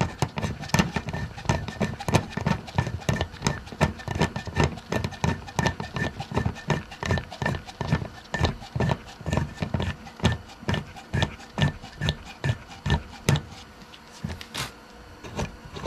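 Hand nutsert (rivet nut) tool being unscrewed from a freshly set nutsert in steel roof sheet metal: a steady run of small clicks and knocks, about three a second, as the threaded mandrel is backed out of the nut.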